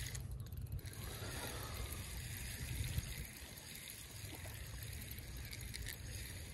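Steady low wind rumble on the microphone with faint handling noise as a spinning reel is cranked, and a small tick about three seconds in.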